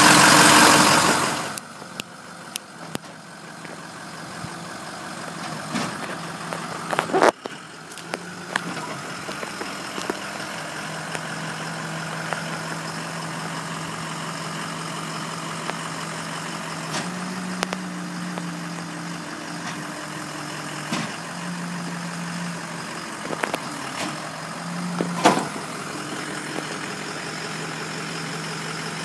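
Ford F550's 6.0-litre Power Stroke V8 diesel idling steadily while the Jerr-Dan hydraulic wheel-lift is lowered to the ground, the engine note shifting several times. There are a couple of sharp metal knocks, and a loud rush of noise in the first second or so.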